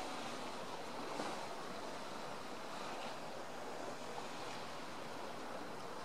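Sea waves washing steadily, an even hiss with no distinct bird calls.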